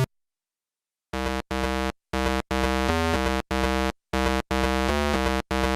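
Synthesizer background music: after about a second of silence, a run of short held chords, each broken off by a brief gap.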